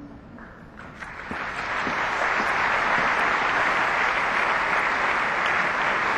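Audience applause that starts about a second in, just as the music's last held note dies away, and builds to steady clapping.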